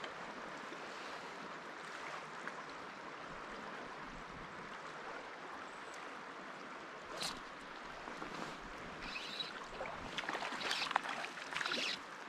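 Steady rush of a riffled river current. From about seven seconds in, irregular sharp water slaps and knocks come over it, a few of them louder.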